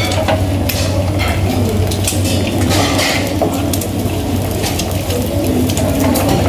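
Spatula scraping and clicking against a frying pan of fried eggs on a gas stove, in irregular short clatters over a steady low hum.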